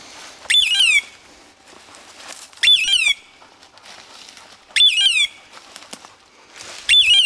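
A bird dog's beeper collar sounding its point signal: a short electronic screech that holds a high note and then falls, repeated four times, about every two seconds. It signals that the dog is standing on point.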